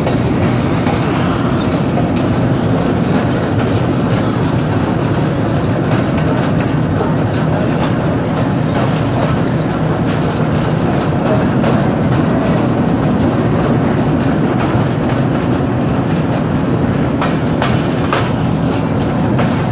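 Passenger train running along the track, heard from aboard at an open carriage door: a steady, loud rumble and rattle of wheels and carriage, with a few sharper clacks near the end.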